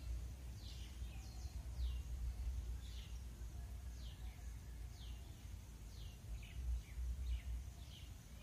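A small songbird repeating a short high chirp that falls in pitch, about one to two a second, over a steady low rumble.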